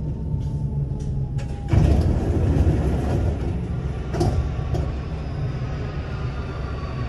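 Alstom Metropolis metro train standing at an underground platform, its steady low hum running throughout. A sudden louder rush comes in about two seconds in, with a couple of sharp clicks a couple of seconds later and faint high whines near the end.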